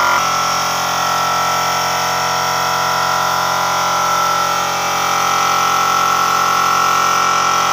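Compressor-fed spray gun spraying polish onto wood: a steady hiss of spraying over the constant running of the air compressor.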